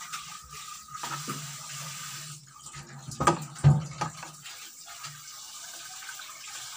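Keema being stirred in a nonstick frying pan with a wooden spatula: a steady sizzling hiss from the hot pan, with a few scrapes and knocks of the spatula against the pan, two of them about three and a half seconds in.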